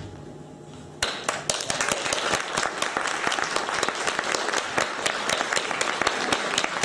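Audience applauding, starting about a second in, just after the dance music stops.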